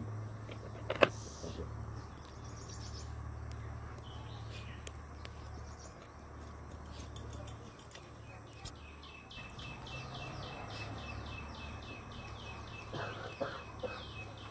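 A bird calls in a fast repeated series of high notes, about four a second, through the second half, after scattered chirps earlier on. About a second in, a single sharp click from a knife striking a steel plate as it cuts a drumstick (moringa pod) is the loudest sound.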